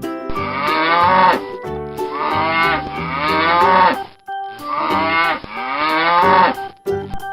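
Cow mooing three times, each moo long and dropping in pitch at its end.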